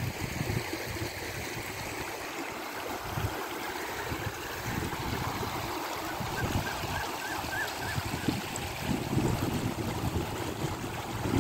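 Floodwater rushing across fields and over flattened grass: a steady wash of water noise, with irregular low rumbles.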